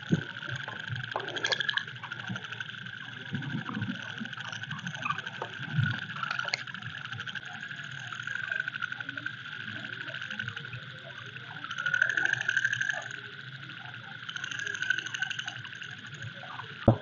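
Frogs calling in a steady, fast-trilling night chorus, with rustling and light footfalls through wet grass and leaves.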